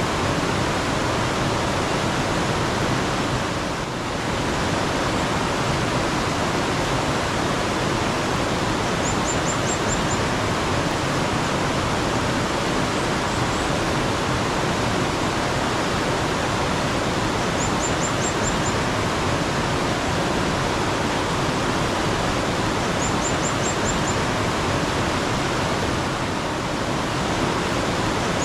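Mountain stream water running steadily, a dense even rush of water. Over it, a small bird gives a short run of five or so quick, very high chirps, repeated about every five to eight seconds.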